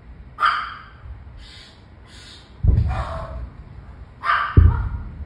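Iron Dome interceptions going off overhead as two sudden deep booms, about two seconds apart, each with a rolling tail. A dog barks several times between and over them.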